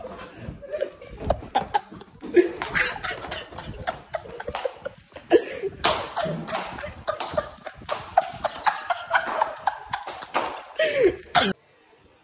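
Several people laughing, shouting and coughing over one another, with sharp knocks or claps among the voices; it cuts off suddenly near the end.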